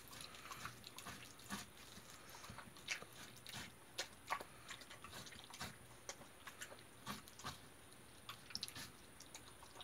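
Jindo dog chewing and biting watermelon rind: faint, irregular crunching bites, roughly one a second with short pauses.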